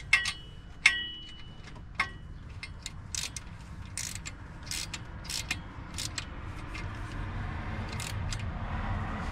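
Hand wrench with a socket working an exhaust header bolt: a few sharp ringing metal clinks, then a run of short ratcheting strokes as the bolt is snugged down.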